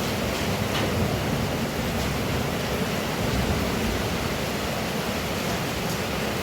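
Heavy rain pouring steadily, with a few faint ticks of drops landing.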